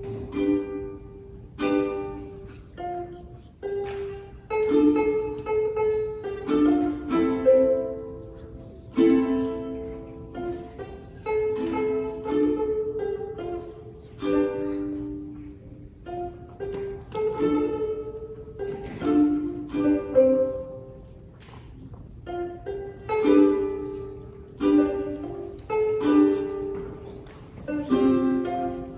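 Ukulele being played: chords strummed now and then between picked melody notes that ring and fade.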